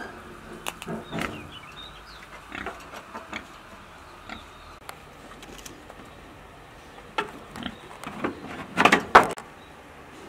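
Captive wild boar grunting in short, scattered sounds, the loudest cluster near the end.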